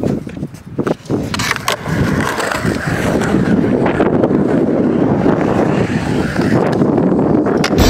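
Skateboard wheels rolling on concrete: a few knocks, then from about a second in a steady, grainy rumble.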